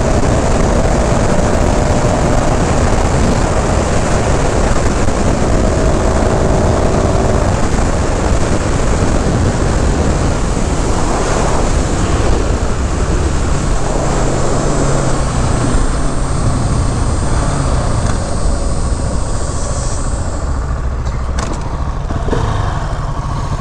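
KTM 690 SMC R's single-cylinder engine under way at speed, its note shifting as the rider works the throttle, under a heavy rush of wind on the onboard microphone that eases near the end.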